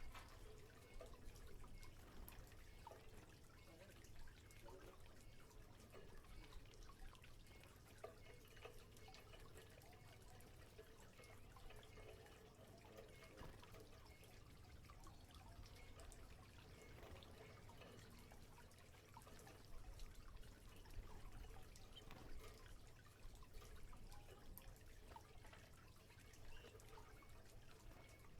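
Faint water sounds from a canary's bath: a steady patter of small drips, splashes and trickling.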